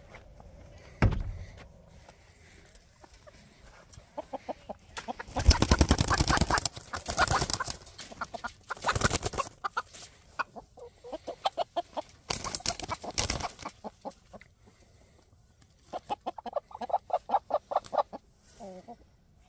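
Chickens clucking and squawking in runs of rapid calls while they are handled and loaded into a wire crate. Several loud bursts of squawking come in the middle, and there is a single knock about a second in.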